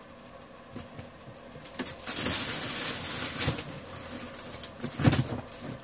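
Rustling from about two seconds in, as of soiled newspapers being gathered up for the trash, with scattered clicks and a heavy thump about five seconds in.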